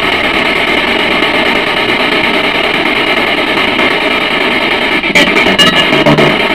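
Background music: a steady, distorted guitar drone, joined by a run of sharp clicks about five seconds in.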